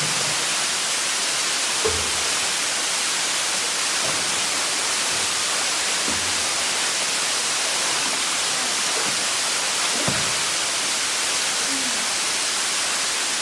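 Steady rushing hiss of a waterfall's falling water, with a few faint low thuds.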